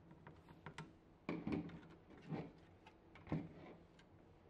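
Small clicks of a screwdriver driving screws into a circuit board on a plastic garage door opener faceplate. Then come three louder knocks about a second apart as the plastic faceplate and tools are handled and set down on a table.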